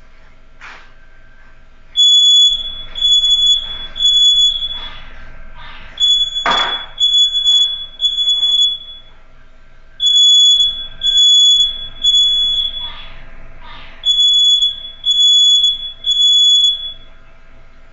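Wall-mounted battery smoke alarm sounding on test: loud, high-pitched beeps in groups of three, about a second apart, the groups repeating four times, the standard three-beep evacuation pattern. A sharp knock about six and a half seconds in.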